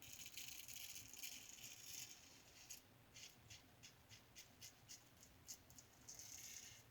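Razor with a half Wizamet blade scraping through lathered stubble: a faint, scratchy rasp, dense at first, then a series of short separate strokes, then another longer pass near the end.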